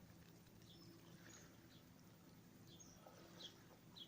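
Near silence with faint, scattered short bird chirps, a few each second, over a quiet outdoor background.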